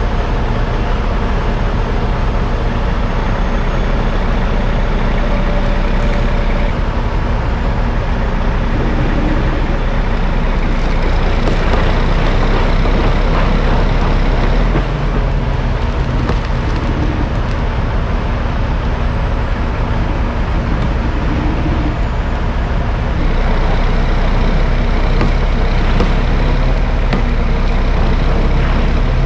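Dump truck's diesel engine running with a steady drone, growing louder about three-quarters of the way through.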